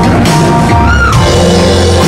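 Live rock band playing loudly, with electric guitar, bass and drums and a short bent note about halfway through.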